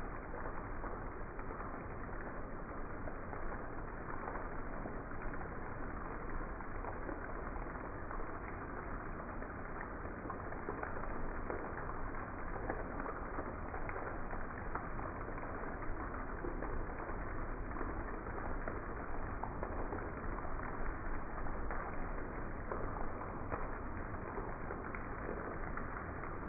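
Steady heavy rain falling, an even hiss with the fine patter of drops.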